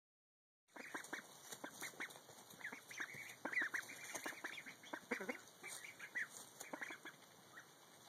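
A group of ducklings peeping in many short, overlapping calls, starting just under a second in.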